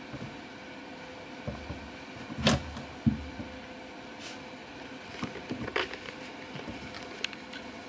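Soft knocks and scratching of kittens clambering on and inside a fabric-covered cylindrical cat tower: two louder bumps about two and a half and three seconds in, then a patter of smaller scrapes and taps, over steady room noise.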